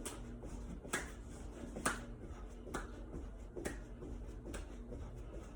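Hand claps at a steady pace, about one a second, from a person doing seal jacks, where each rep brings the hands together in a clap.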